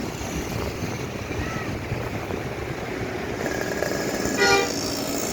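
Steady rumble of passing road traffic, with one short, loud horn toot about four and a half seconds in.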